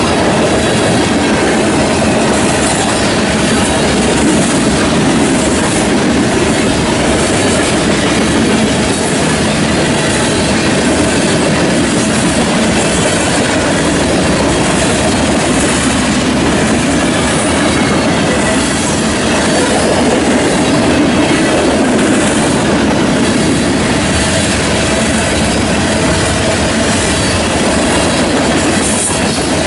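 Freight train of covered hopper cars rolling past at about 48 mph: the loud, steady sound of steel wheels running on the rails.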